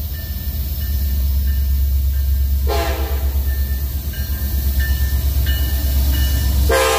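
Union Pacific diesel freight locomotives approaching, their engines a low, steady rumble that grows louder. The lead locomotive's air horn gives a short blast about three seconds in, then a long blast starts near the end.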